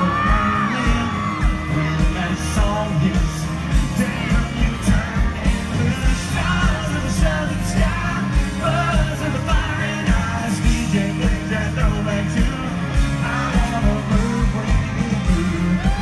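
Live country band playing loud with a steady drum beat, under a male lead vocal.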